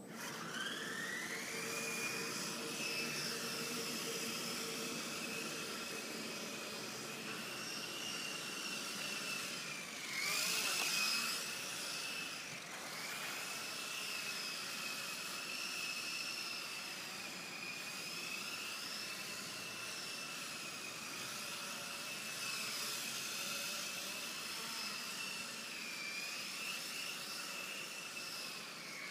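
A small remote-controlled drone's motors and propellers whine high. They spin up quickly at the start, then hold a steady whine that wavers slightly as it is flown. About ten seconds in there is a louder, noisier rush of air.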